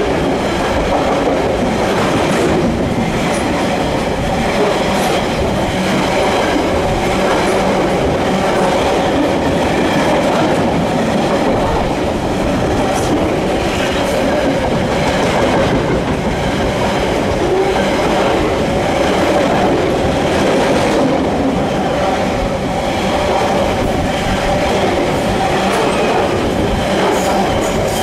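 Container wagons of a loaded binliner freight train passing close by: a steady, loud rumble and clatter of steel wheels on the rails.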